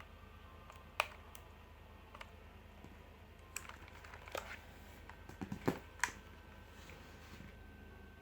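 Keys being pressed on an Armaggeddon MKA-5R RGB Falcon mechanical keyboard: a few scattered, irregular clicks. One comes about a second in, and a quicker cluster follows between about three and a half and six seconds in.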